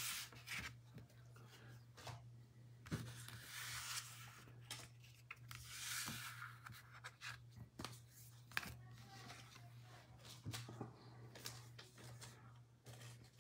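Faint rustling and scraping of baseball card packs and cards being handled, with a few light clicks over a steady low hum.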